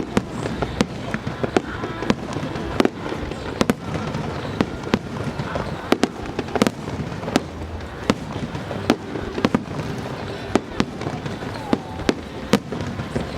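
Starmine fireworks barrage: shells bursting in rapid, irregular succession, several sharp bangs a second over a continuous crackle.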